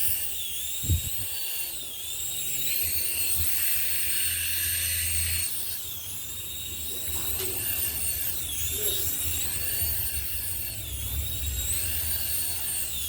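Small electric toy helicopter's motor and rotor whining, the pitch rising and falling as the throttle changes. A single knock about a second in.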